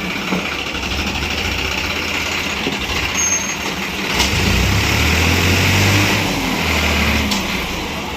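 JCB 3DX backhoe loader's four-cylinder diesel engine running; the revs rise about four seconds in and settle back near the end.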